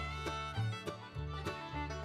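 Background music with a steady quick beat.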